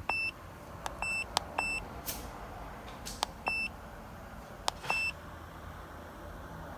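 Handheld OBD-II scan tool giving five short high beeps, each beep answering a click of its buttons as the stored trouble code is brought up.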